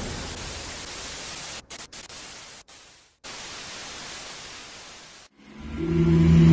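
Steady hiss of static noise, broken by a few brief dropouts and cut off about five seconds in. A low steady hum with held tones then swells up near the end.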